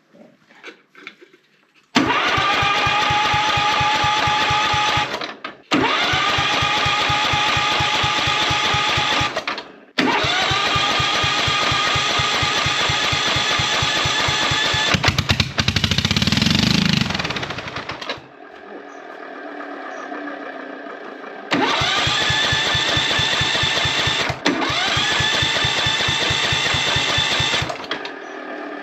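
Husqvarna CT151 ride-on mower's electric starter cranking the engine in five bursts of about three to eight seconds each, whining up to speed at the start of each burst, without the engine catching.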